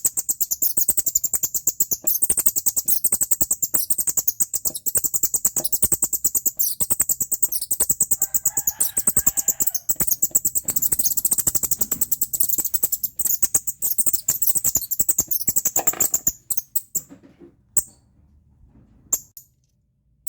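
Rodent-repeller sound: a fast, even train of shrill chirps, several a second, played to drive away shrews and house mice. It breaks off a little past three-quarters of the way through, leaving a few scattered chirps and a short silence near the end.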